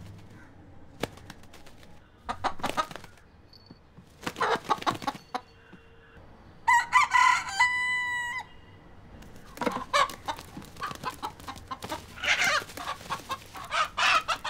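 A broiler-breed rooster crowing once, about seven seconds in: a broken start and then a long held note. Shorter clucking calls come before and after it.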